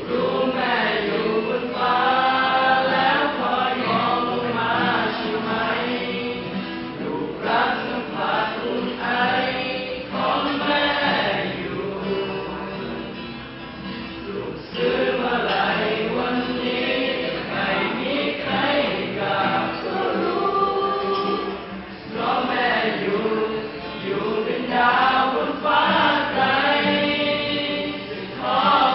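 A choir singing live, in sustained sung phrases, accompanied by an electric guitar.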